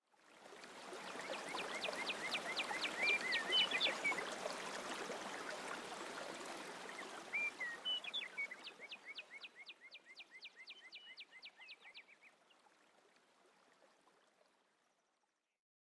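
Steady rushing of running water, with a small songbird singing a rapid trilled phrase twice over it. The sound fades in at the start and fades out near the end.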